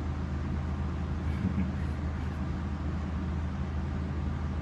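Steady low hum and hiss of room tone, with no distinct event standing out.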